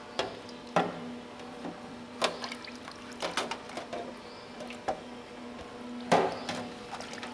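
Liquid splashing and sloshing while greasy range-hood fan parts are washed in cleaning solution, with several sharp knocks and clatters as parts are handled, over a steady low hum.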